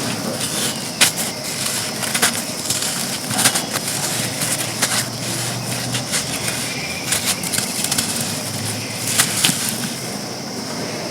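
Dry chunks of pure sand crumbling and crunching, a steady gritty crackle broken by many irregular sharp crunches.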